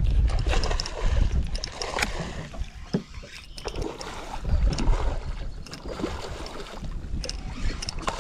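Wind rumbling on the microphone over splashing water, with scattered knocks and clatter from the boat.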